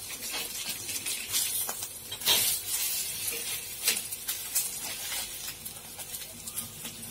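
Potato patties shallow-frying in oil on a flat griddle (tawa), now cooking on their second side: the oil sizzles steadily with scattered sharp pops, the loudest about two seconds in and again near four seconds.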